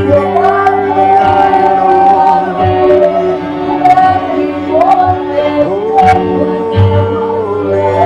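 Worship music with singing: long held notes that slide from one pitch to the next over a steady low drone, with a few short percussive hits.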